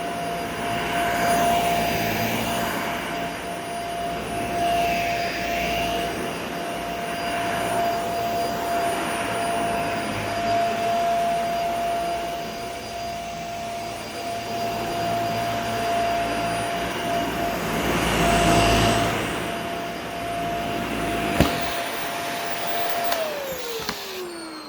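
Dyson Small Ball upright vacuum cleaner running with a steady whine over its airflow noise. Near the end there is a click, then the motor is switched off and its whine falls away as it winds down.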